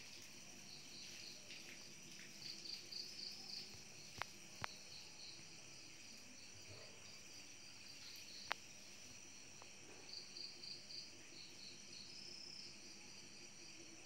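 Faint insect chirping in short repeated trains, with three sharp clicks: two close together about four seconds in and one a little past eight seconds.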